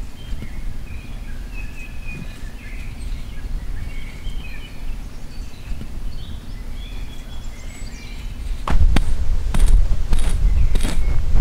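Birds chirping over a steady outdoor background. About eight and a half seconds in it turns louder: a hand broom sweeping bare ground and leaf litter in quick strokes a little over half a second apart.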